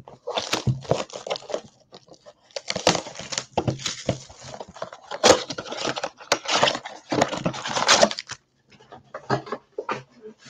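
Plastic shrink-wrap crinkling and tearing as a cardboard trading-card blaster box is unwrapped and opened by hand, a dense crackling rustle that stops about eight seconds in, followed by a few light clicks and taps.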